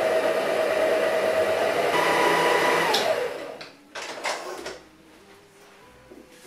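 Electric stand mixer motor running steadily while mixing flour into cake batter, then switched off about three seconds in, its whine falling away as it spins down. A couple of clunks follow as the mixer head is tilted up.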